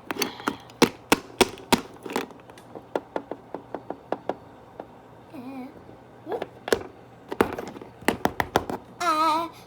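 Small plastic Littlest Pet Shop figures being moved by hand, tapping and knocking against a hard surface in a quick, irregular run of sharp clicks, sparser in the middle. Near the end there is a brief wavering voice.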